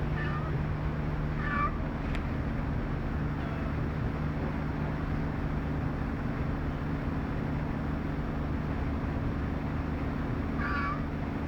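Domestic cat meowing: two short meows at the start and another near the end, over a steady engine hum.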